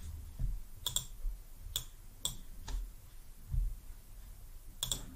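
Computer mouse clicking while adjusting settings: about six sharp single clicks spaced roughly half a second to a second apart, the last two close together near the end, over faint low room noise.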